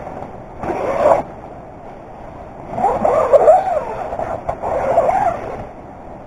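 Nylon tent fabric rustling and crinkling as it is handled, in three bursts.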